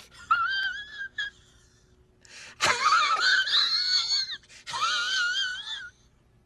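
High-pitched crying sound effect: three wavering wails, the middle one the longest and loudest, each bending up in pitch at its end.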